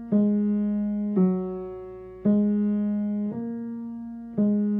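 Piano played by the left hand on the three black keys, five single low notes about one a second, each struck and left to ring and fade before the next.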